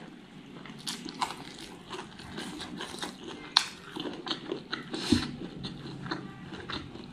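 Close-up mouth sounds of a person chewing fatty smoked pork: wet smacks and irregular sharp clicks, the sharpest about three and a half seconds in and another about five seconds in.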